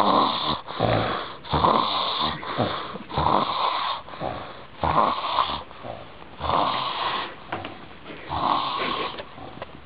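A person snoring in short, repeated snores, about one a second at first and then further apart, with fainter breathing between.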